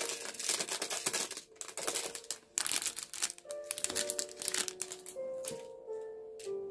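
Small blue teardrop-shaped diamond painting drills clicking and rattling as they are poured into a plastic sorting tray, dense for the first three seconds or so and then thinning to a few clicks, over background music.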